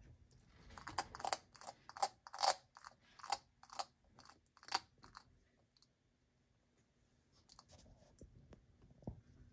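Bearded dragon crunching and chewing food pellets: a quick run of crisp crunches for about four seconds, then only a few faint clicks.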